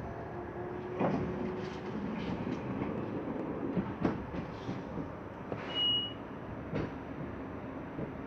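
Train running, a steady rumble broken by a few sharp knocks. A short high beep sounds about six seconds in.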